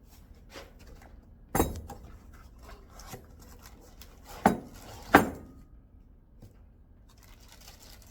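Metal coilover parts and hardware clinking and knocking together as they are handled and fitted, with scattered light clicks and three loud knocks, the first about one and a half seconds in and the other two close together past the middle.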